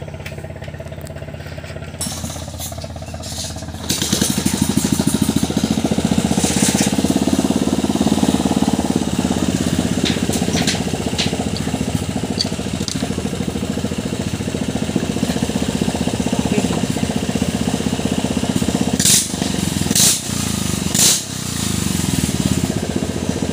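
Small air-cooled engine mounted in a racing longboat, running with a fast, even firing beat. It runs at a low level, steps up sharply in speed and loudness about four seconds in, and holds there. A few sharp clicks come near the end.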